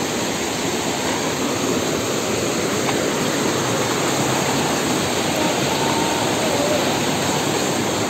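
Waterfall's steady rush of falling water, even and unbroken.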